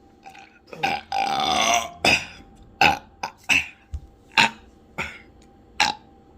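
A person letting out loud beer burps: one long, drawn-out burp about a second in, then a run of short burps one after another.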